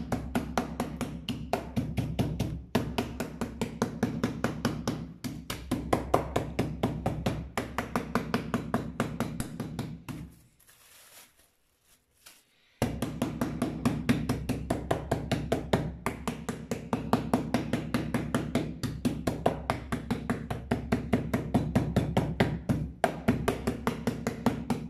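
Meat pounder beating a roe deer steak flat through cling film on a plastic cutting board: a quick, steady run of blows, several a second, pausing for about two seconds near the middle.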